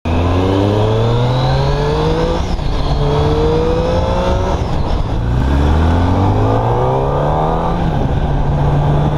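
Sport motorcycle engines, a Triumph Daytona and then a Kawasaki ZX-10R, accelerating hard through the gears. The pitch climbs and drops back at each of about three upshifts, over the rush of wind.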